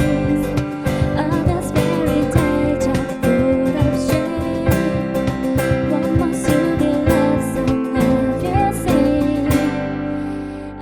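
Acoustic guitar strummed in steady rhythm under a held, wavering melody line: the closing instrumental bars of a live pop song. The strumming thins out about nine and a half seconds in.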